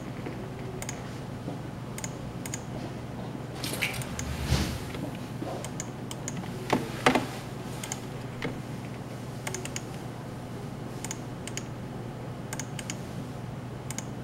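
Computer keyboard keystrokes and mouse clicks at scattered intervals while values are entered into a software dialog, over a steady low hum. A short rustle about four seconds in and two louder knocks about seven seconds in.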